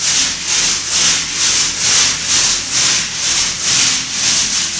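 Paint roller spreading white paint up and down a wall in repeated strokes: a rhythmic rubbing hiss, about two strokes a second.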